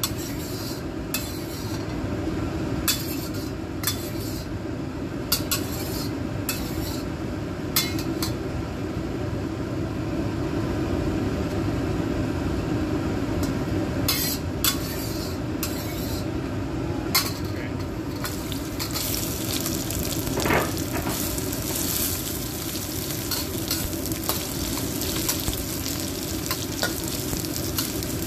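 Metal spatula clinking and scraping in a carbon-steel wok of heating oil. About two-thirds of the way in, crushed ginger, garlic and lemongrass go into the hot oil and start sizzling steadily as they are stir-fried.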